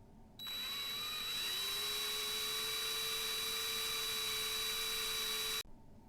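Small electric drill spinning up and running steadily for about five seconds while drilling out the rivet posts on a diecast model car's base, then stopping abruptly. Its pitch rises over the first second as it comes up to speed, then holds.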